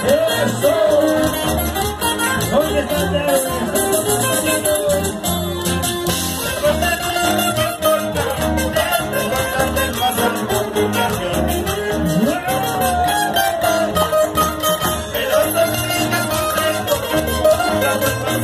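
Live band music played loud through a PA system: violins and electric guitar over bass and drums, with singing.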